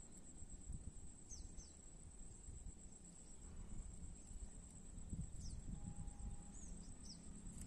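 Quiet open-air lakeside ambience: a steady high-pitched insect drone, low wind rumble on the microphone, and a few short falling bird chirps scattered through.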